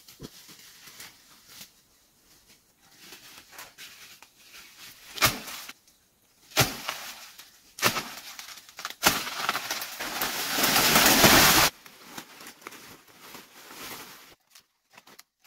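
Leafy forest undergrowth rustling and crackling as it is handled and pushed through, with several sharp knocks and a loud sustained rustle about two-thirds of the way in that stops abruptly.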